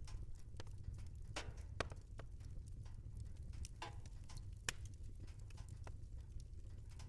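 Fireplace fire crackling: irregular sharp pops and snaps over a steady low rumble, with two louder pops, one near two seconds in and one near the middle.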